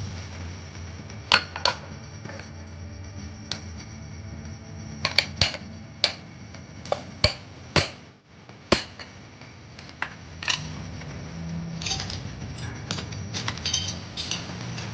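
Hand tools knocking and clicking against a used car horn as it is taken apart to get at its copper winding: many sharp, irregular knocks, closer together near the end, over a steady low hum.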